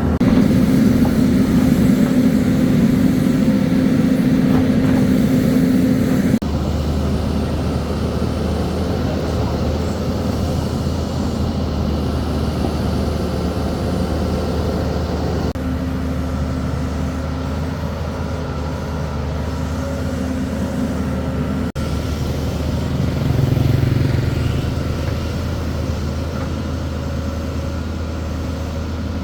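Construction crane's engine running steadily, its tone changing abruptly a few times and swelling briefly near the end.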